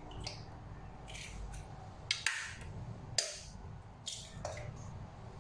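A metal spoon clinking and scraping against a stainless steel mixing bowl as a raw egg is beaten, in separate short strokes about a second apart, two of them louder than the rest.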